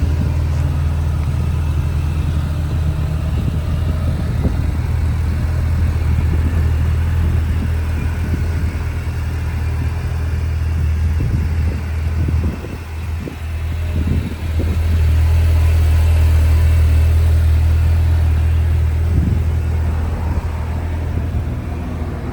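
Kawasaki Ridge XR side-by-side's engine running with a steady low hum. The hum drops a little past halfway, then comes back louder for a few seconds.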